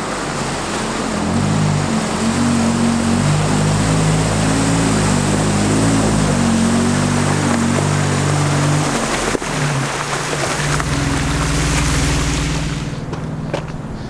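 Jeep Wrangler driving through a muddy water hole while towing a camper trailer: the engine runs under load as the tyres churn and throw up splashing muddy water. The splashing drops away near the end.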